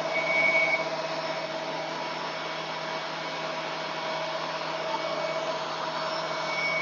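Table-mounted router spinning freely with no wood on the cutter, a steady motor whine over the rush of dust extraction. It is a little louder in the first second, then holds steady.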